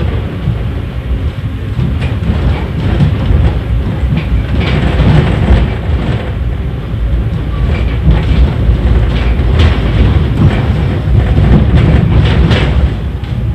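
Inside a moving 71-931 Vityaz low-floor tram: a steady rumble of the wheels on the rails, with scattered clacks as they run over rail joints.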